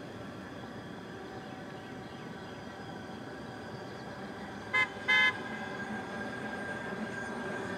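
Hi-rail pickup truck's horn giving two short toots about five seconds in, the second a little longer, over a faint steady background.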